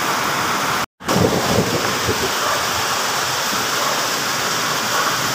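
Steady rushing noise, cut off completely for a moment about a second in, with a few low bumps just after it.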